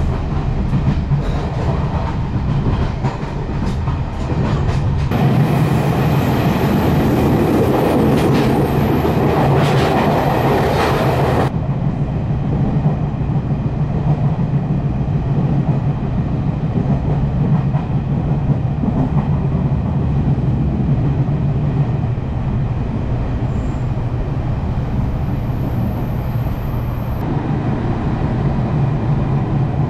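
Taiwan Railways Fu-Hsing passenger coach running on the rails, heard from inside the car: a steady low rumble of wheels on track, with light clicking in the first few seconds. From about five seconds in, a louder rushing noise builds up and then cuts off abruptly around eleven seconds in, after which the even running rumble carries on.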